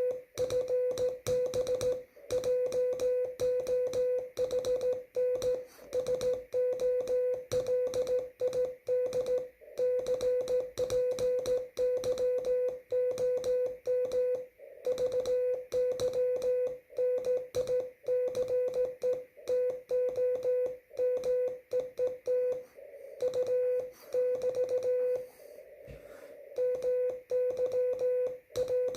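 Morse code (CW) tone from an amateur radio transceiver, sent slowly as dots and dashes of a single steady mid-pitched note. Each element starts and stops with a click, over faint background hiss, and there is a short gap in the keying a few seconds before the end.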